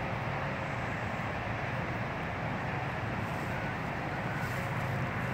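Steady hiss of static from an HF ham radio receiver's speaker, band noise on 40 meters with no signal coming through, cut off above the voice range.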